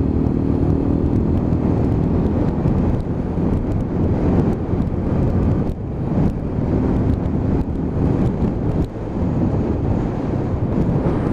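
Lexmoto Ranger motorcycle engine running as the bike is ridden, mixed with heavy wind noise on the camera microphone.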